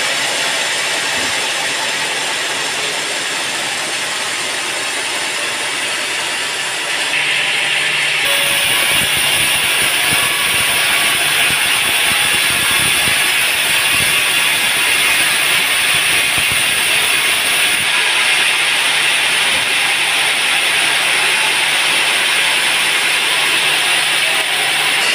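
Band sawmill running, its blade sawing a teak log with a steady harsh noise that grows louder and brighter about seven seconds in, then holds.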